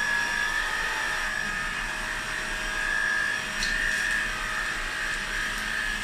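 Redkey F10 cordless stick vacuum running with its electric brush head on a hard floor: a steady high-pitched motor whine over the rush of suction, at below its full power setting.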